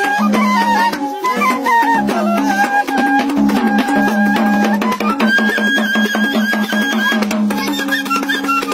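Bansuri bamboo flute playing a Nepali folk dance tune in long held notes over quick, steady strokes on a madal hand drum. The melody climbs to higher notes about five seconds in.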